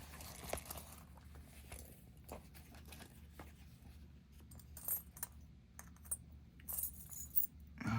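Light metallic clicks and clinks of a tiny padlock and lock picks being handled, scattered through, with a sharper click about five seconds in and a few more near the end.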